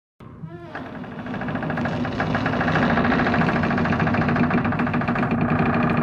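Horror sound effect: a brief wavering tone at the very start, then a dense buzzing, rattling drone over a low steady hum that swells up over the first couple of seconds and holds.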